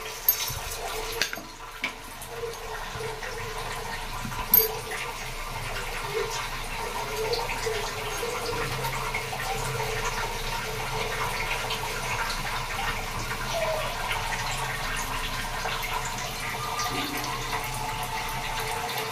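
Mustard seeds crackling and popping in hot oil in a kadai: a steady, dense crackle with one sharper pop about four and a half seconds in.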